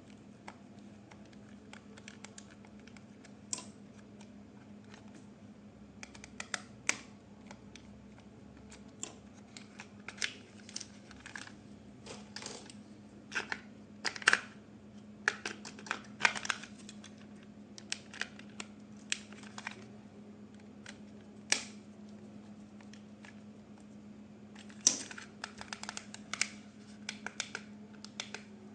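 Irregular clicks, taps and light scratches of hands handling objects, some in quick clusters and the loudest about a third and halfway through, with a steady low hum underneath.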